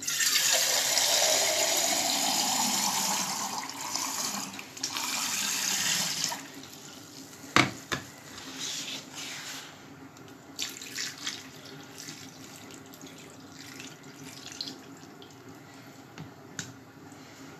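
Water running into a vessel for about six seconds, adding water to cover calf's feet in a steel stewing pot; it stops, then a sharp clink of metal and a few lighter knocks and clinks follow.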